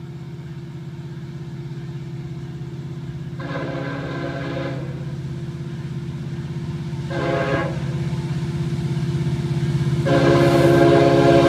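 Diesel freight locomotive horn sounding at a grade crossing: a long blast, a short blast, then a long blast starting about ten seconds in. Under it is the low steady rumble of the approaching train, growing louder.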